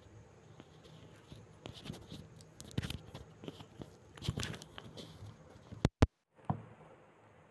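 Faint rustling and scratchy handling noises with scattered clicks, then two sharp clicks about six seconds in with a brief cut to dead silence between them, and one more click just after.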